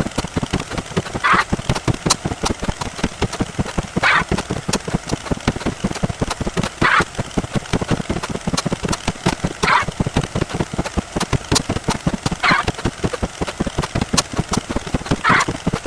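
Sound effects from a counting video played at high speed: a rapid, unbroken stream of short clicks and thumps, with a brighter, higher blip coming back about every three seconds.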